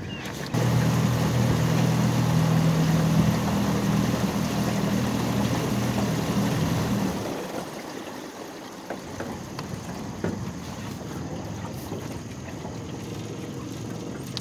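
Boat's outboard motor running steadily under way with a low, even hum; it picks up suddenly about half a second in, then eases off about seven seconds in to a quieter run with water noise.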